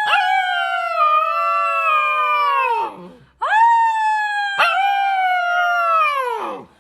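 Dog howling: one long howl that drops in pitch and stops about three seconds in, then after a short breath a second long howl that slides down in pitch at its end.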